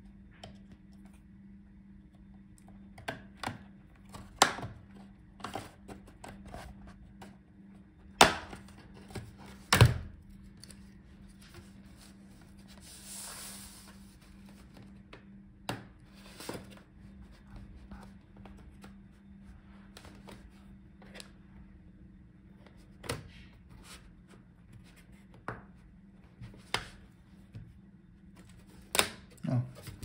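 Bottom case of a Dell Latitude 7450 laptop being pried off with a plastic pry tool: irregular clicks, snaps and knocks as its clips come loose, the two loudest close together about a third of the way through.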